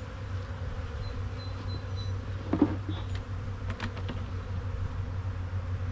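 Steady hum of a mass of honey bees buzzing over an open hive's frames, with one brief louder sound about two and a half seconds in.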